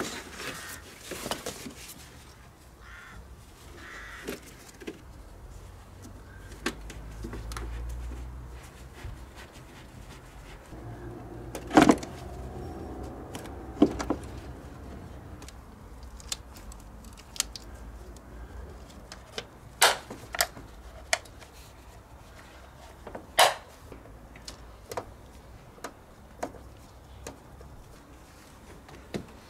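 Scattered clicks, knocks and plastic rattles of engine-bay parts, such as the air filter housing and its lid, being handled and snapped back into place by gloved hands. A few knocks stand out sharply, spread through the whole stretch.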